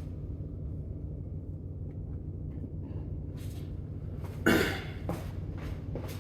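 Steady low mechanical hum, with a few light handling clicks and one loud knock about four and a half seconds in.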